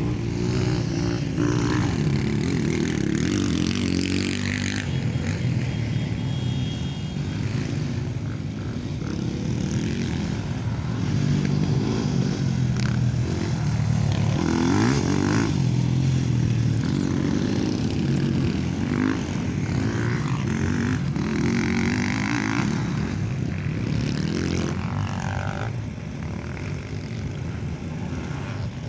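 Motocross dirt bike engines running hard on a dirt track, the engine note rising and falling again and again as the riders open and close the throttle.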